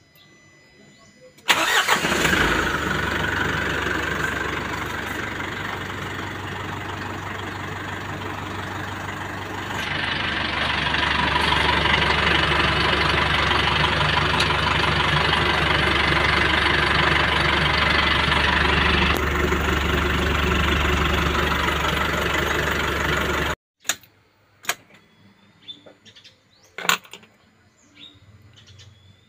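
Isuzu 4JJ1 four-cylinder turbodiesel starting about a second and a half in, then running at a steady idle, louder from about ten seconds in when heard at the open engine bay. The engine sound cuts off abruptly near the end, leaving bird chirps and a few clicks.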